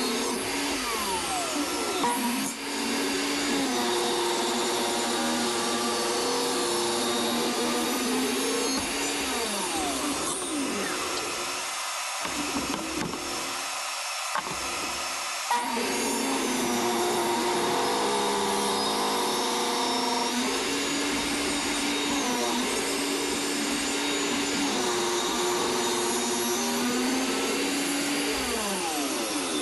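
DeWalt jobsite table saw running and ripping hardwood boards, its motor whine dipping and recovering in pitch as the blade takes each cut.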